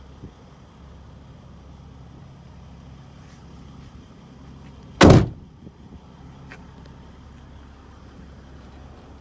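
Steady low hum of a Mercedes-Benz Sprinter 519 CDI's V6 diesel engine idling, with one loud thump about five seconds in.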